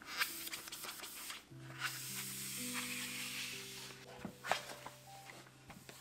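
A cloth wiping over the stainless steel inside of a dishwasher door makes a hissing rub in two long strokes, with sharp taps at the start and about four and a half seconds in. Soft background music with held notes plays underneath.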